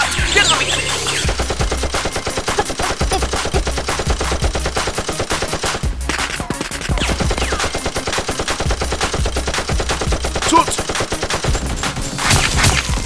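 Rapid automatic gunfire, a long run of shots at roughly eight to ten a second with a short lull about six seconds in, laid over a toy-blaster battle as a sound effect.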